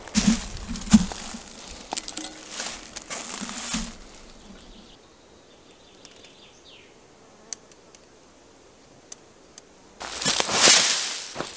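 Close rustling and knocks for a few seconds, then a quieter stretch with faint fly buzzing, and near the end boots crunching on a dry forest floor of pine needles and twigs.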